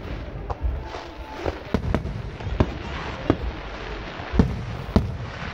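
Aerial fireworks shells bursting: a string of sharp bangs, about six in all, with the loudest about four and a half seconds in.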